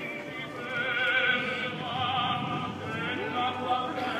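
Operatic singing with a wide, even vibrato over musical accompaniment, from the soundtrack of a musical fireworks show built on Italian songs.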